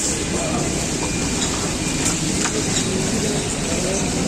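Beef chapli kababs frying in a wide pan of oil: a steady sizzle with a few sharp clicks of the metal spatula on the pan, over a low street rumble.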